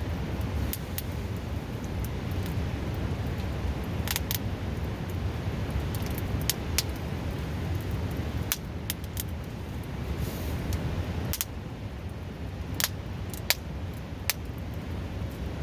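Wood campfire crackling, with sharp pops scattered irregularly throughout, two louder ones about 7 and 13.5 seconds in. Underneath is the steady, loud rushing of a river close by.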